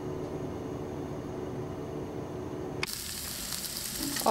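A steady low hum, then about three seconds in a sudden cut to peppers, onions and garlic sizzling as they sauté in oil in a pan.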